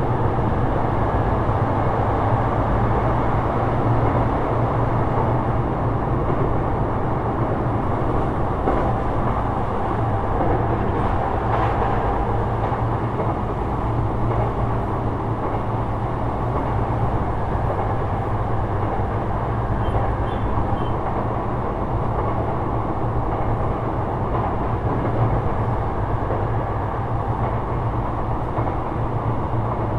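Onboard running sound of a Sotetsu 12000 series electric train, Mitsubishi IGBT-VVVF controlled, travelling steadily along the line: a continuous rumble of wheels on rail with a low hum.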